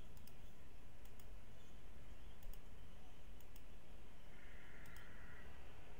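Computer mouse clicking a few times, several clicks coming in quick pairs, over a faint steady hiss of room tone.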